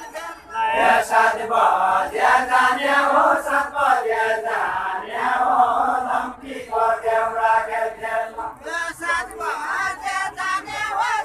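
Deuda folk song sung in chorus by a group of voices, in long drawn-out phrases with short breaks between them.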